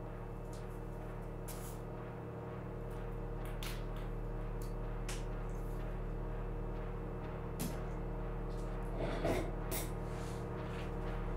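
A low steady drone of several held tones, with faint scattered clicks from a briefcase being handled and opened. About nine seconds in there is a short, louder rustle as a folder is put down on the table.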